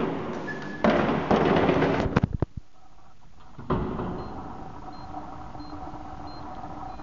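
Handling noise and a door being pushed through, with a few sharp clicks about two seconds in, then an electronic door-entry keypad being pressed, giving several faint short high beeps.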